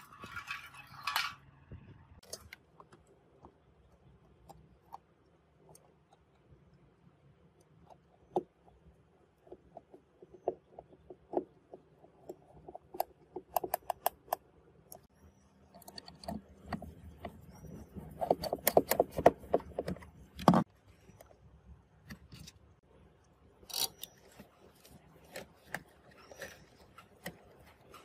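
Handling and fitting of a plastic refrigerator evaporator fan motor assembly: scattered clicks and knocks of the plastic housing and parts. There is a dense run of rattling clicks past the middle, ending in a sharp knock, and another burst of clicks a few seconds later.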